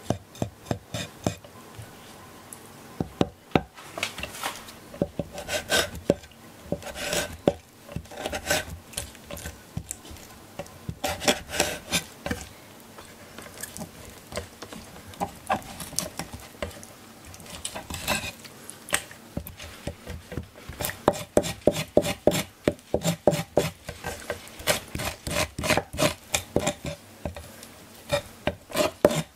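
Kitchen knife cutting and scraping fish liver and stomach on a wooden cutting board: the blade taps the board again and again, with scraping strokes between. The taps come faster and more evenly in the last third.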